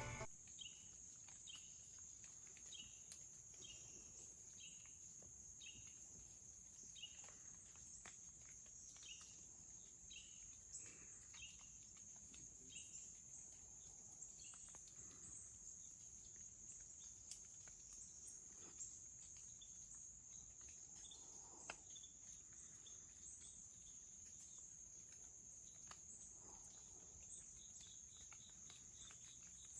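Faint insect chorus: a steady high-pitched drone of crickets or katydids, with a short chirp repeating a little more than once a second through the first half and again near the end.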